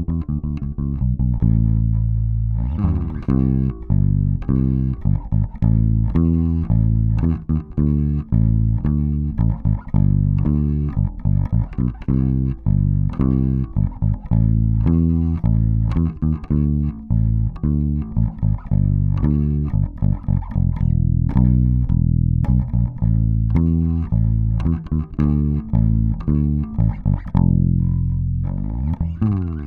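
2003 German-made Warwick Corvette Standard Bubinga five-string electric bass played fingerstyle in a steady run of plucked notes, with bass and treble set at the middle and the pickup blend centred for a round tone.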